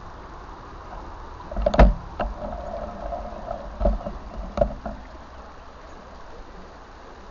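Stream water running steadily, with a few close splashes and knocks from about one and a half to five seconds in, the loudest near the start of that stretch.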